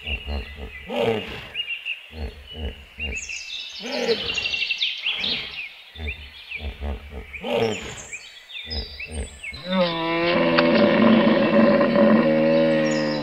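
Hippopotamus calling: several deep grunts, then about three seconds before the end a long, loud, pitched bellow that holds to the end. Birds chirp faintly behind it.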